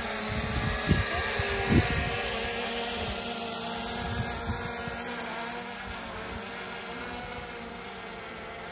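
Small quadcopter camera drone in flight, its propellers giving a steady buzzing hum that slowly grows fainter. A couple of short low thumps sound about one and two seconds in.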